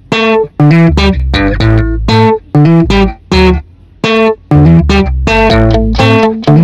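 Background music: short plucked guitar notes over a bass line, with brief pauses between phrases.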